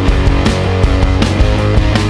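Background rock music with electric guitar and drums and a steady beat.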